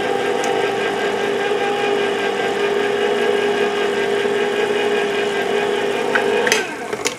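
Electric can opener running with a steady, even-pitched motor hum as it cuts around a large can, stopping abruptly about six and a half seconds in.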